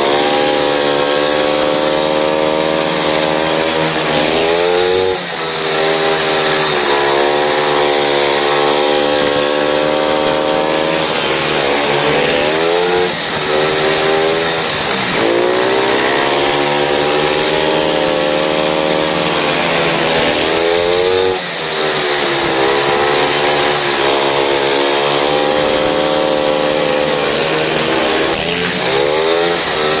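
Speedway motorcycle's single-cylinder methanol-burning engine, heard from a camera on the bike, running hard. Its pitch dips sharply and climbs back about every eight seconds as the rider goes through the bends, over a steady wind rush.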